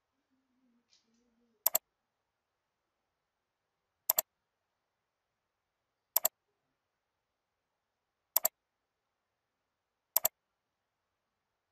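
Computer mouse button clicks, five of them about two seconds apart. Each is a quick press-and-release double click.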